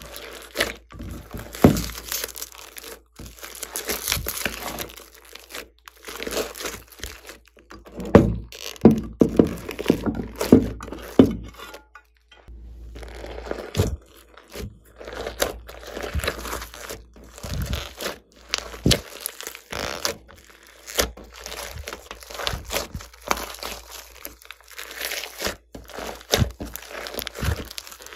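Glossy slime packed with foam beads being squeezed, stretched and kneaded by hand, giving a dense, irregular run of sticky pops, clicks and crunches. The sounds stop briefly about twelve seconds in, then carry on.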